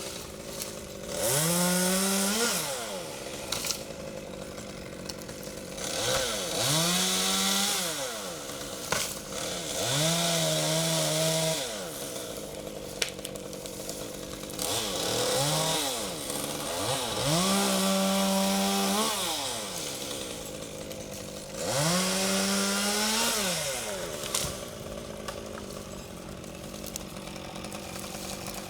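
Two-stroke chainsaw revving up to full speed about six times, each time cutting through hackberry wood for a second or three, then dropping back to idle between cuts. A few sharp knocks fall between the cuts.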